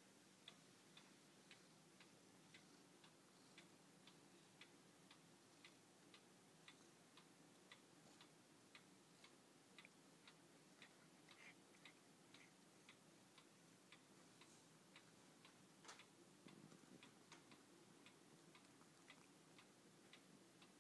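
Near silence with faint, steady ticking, about two ticks a second, and one sharper click about sixteen seconds in.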